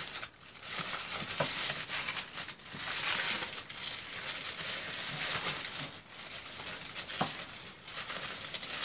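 Paper wrapping crinkling and rustling irregularly as it is unrolled by hand from around a wand.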